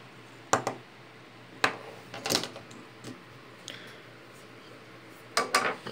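A few sharp knocks and clatters of a plastic fidget spinner being handled and set down on a wooden desk, the loudest near the start and a pair of them near the end.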